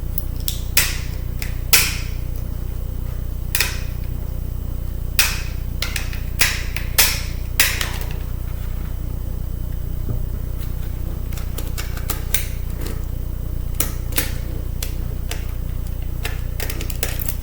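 Irregular sharp clicks and taps of a screwdriver, screws and small metal and plastic parts as a laptop CD drive is taken apart, about a dozen scattered through, over a steady low hum.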